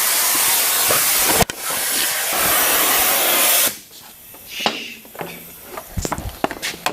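Oxygen-acetylene cutting torch hissing loudly, breaking off for an instant about one and a half seconds in, then shutting off suddenly a little past halfway. Scattered metal clinks and knocks follow.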